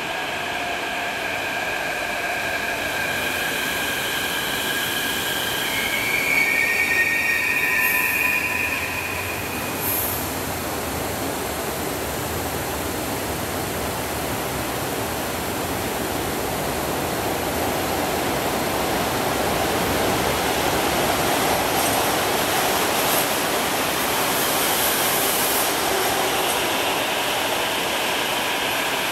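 CAF/Mitsubishi Série 500 metro trains moving through an underground station. High-pitched whining tones for the first ten seconds or so, loudest about seven seconds in, then the steady rumble of a train rolling past the platform, growing louder in the second half, with whining tones returning near the end.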